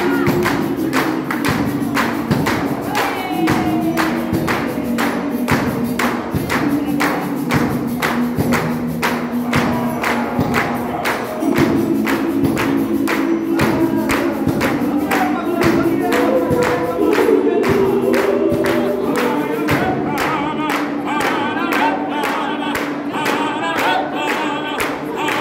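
Gospel choir singing in harmony, with the singers clapping their hands in a steady beat of about two claps a second.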